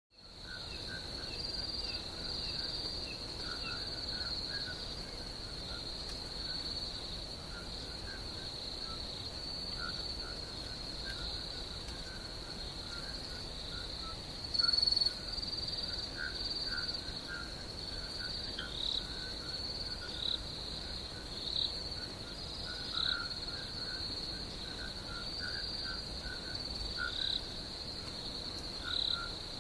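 Night ambience of crickets: a steady, high-pitched trill throughout, with scattered lower chirping calls and a few short falling notes. One brief, louder high note sounds about halfway through.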